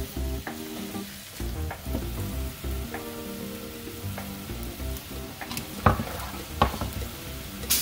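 Pork pieces sizzling as they fry in a wok while being stirred, over background music. Near the end, a few sharp clanks of a metal spoon against the wok as the pork is scraped out into the braising pot.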